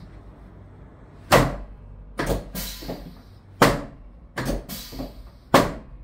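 Drop-piece sections of a Thompson chiropractic drop table snapping down under the chiropractor's thrusts during a lower-back adjustment: five sharp clacks, two of them followed by a short hiss.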